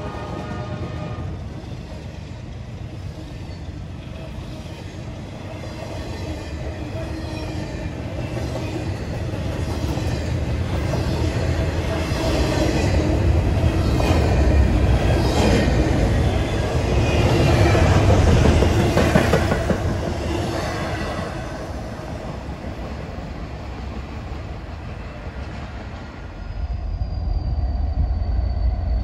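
Double-stack intermodal freight train rolling past close by: a steady rumble of steel wheels on rail with faint wheel squeal, growing louder in the middle as the cars pass. Near the end it changes abruptly to a lower, steadier rumble.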